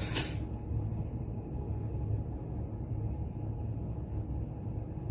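A deep breath drawn in through the nose ends about half a second in. After that there is only a steady low hum while the breath is held.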